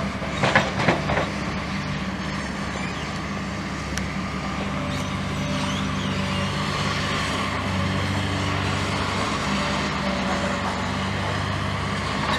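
Heavy diesel engine of demolition machinery running steadily with a low hum that shifts slightly partway through. A few sharp knocks sound about half a second to a second in.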